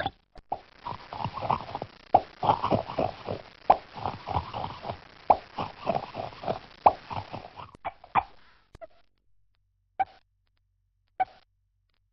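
Cartoon pop sound effects: a rapid flurry of many short pops for about seven seconds, then single pops spaced a second or so apart.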